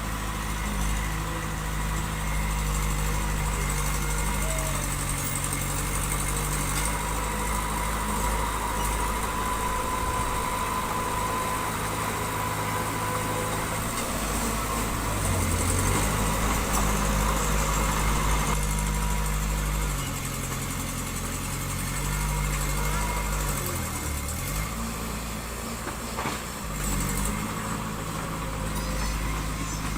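Diesel engine of earthmoving machinery running steadily, its pitch dipping and recovering several times as the load on it changes.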